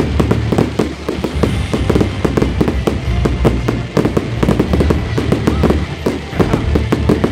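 Aerial fireworks barrage: shells bursting in quick succession, with a dense run of bangs and crackling.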